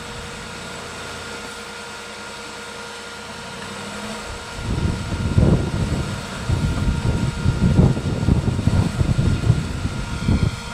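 A 1969 Toyota Land Cruiser's engine is stuck in deep snow. It idles with a steady hum for about four seconds, then is revved in uneven surges as the vehicle is rocked back and forth to break free.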